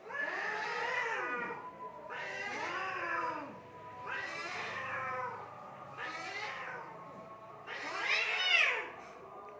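Domestic cats caterwauling in a fight: a run of about five long, wavering yowls that rise and fall in pitch, the loudest near the end.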